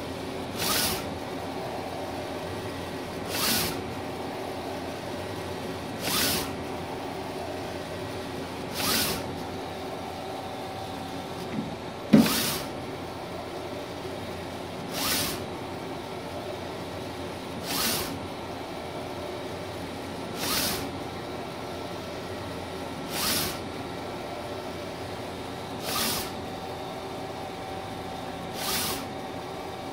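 Mimaki 3042 HG UV-LED flatbed printer printing: a steady machine hum with a short rushing surge about every three seconds as the print-head carriage makes its passes. A single sharp click about 12 seconds in.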